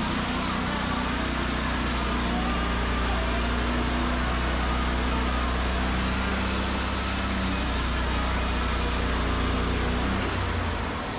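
Sawmill engine running steadily under load, a deep even hum with a dense rushing noise over it; the engine note shifts near the end.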